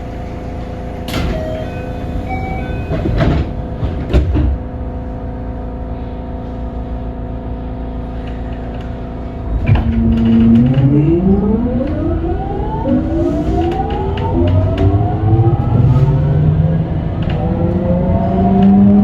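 JR West 207 series EMU motor car with a Mitsubishi power-transistor VVVF inverter: a steady hum with a few clicks, then about halfway the train powers away from a stop. The inverter and traction motors give a whine made of several tones that climb in pitch in steps as the train accelerates.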